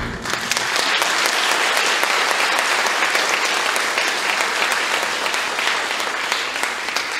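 Audience applauding: dense, steady clapping. The last orchestral chord of the music dies away in the first moment.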